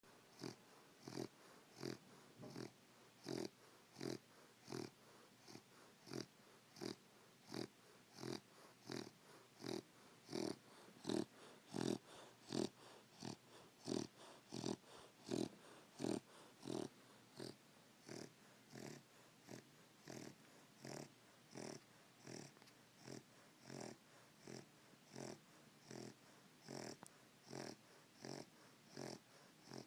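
English Bulldog puppy snoring: short, regular snorting breaths, about three every two seconds, louder in the middle stretch.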